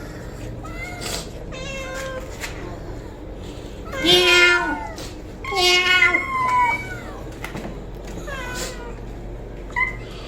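A cat meowing repeatedly: a few softer meows, then two loud, drawn-out meows about four and six seconds in, and fainter ones near the end.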